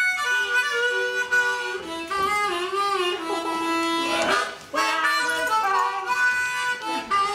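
Harmonica playing a slow melody of held notes and chords, with a brief break a little after four seconds in.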